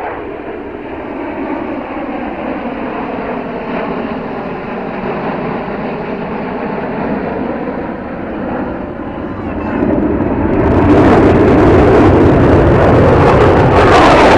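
Jet engine noise from a formation of military fighter jets flying over, a steady rumble that grows louder and swells sharply about ten seconds in.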